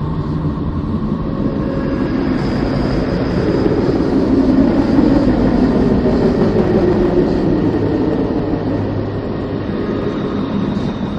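A deep, rumbling space drone of the kind made by turning spacecraft radio and plasma-wave data into sound, a dense low rush with faint steady tones above it. It swells to its loudest in the middle and eases off toward the end.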